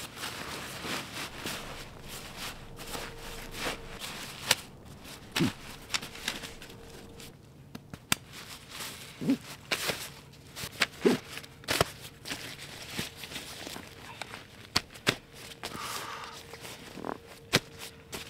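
A nylon stuff sack being pressed down and its compression straps pulled tight: fabric rustling and crinkling, with irregular sharp clicks and snaps and some crunching of snow.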